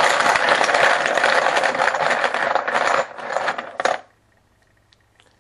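Poker chips clattering and rattling against each other as a hand stirs them around in a plastic bucket. The rattling thins out and stops about four seconds in.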